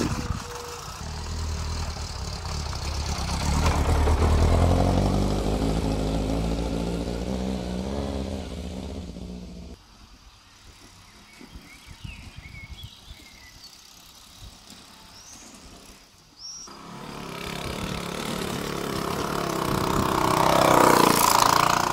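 Small two-stroke moped engines. One runs steadily and is loudest about four seconds in, then cuts off abruptly. After a quiet stretch with a few faint chirps, another moped engine starts up and grows steadily louder as it approaches, loudest near the end.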